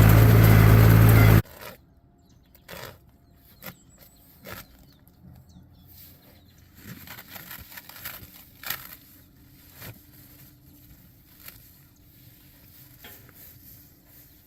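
Tractor engine running steadily under load while baling hay, stopping abruptly about a second and a half in. Afterwards only scattered light clicks and rustles with a faint low hum.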